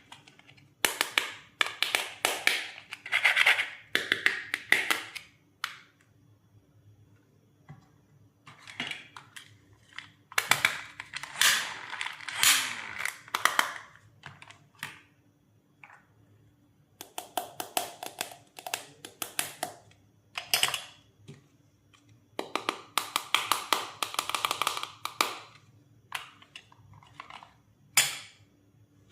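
Plastic toy doctor-set pieces being handled and set down: bursts of clicking, tapping and scraping with short pauses between them.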